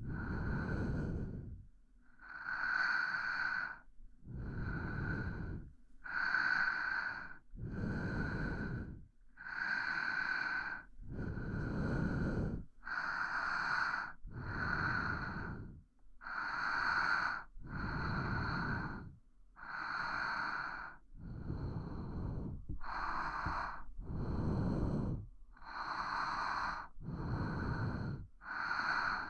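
A person breathing slowly and steadily right at the microphone, ASMR-style. Each inhale and exhale is heard separately, in an even rhythm of a full breath every few seconds.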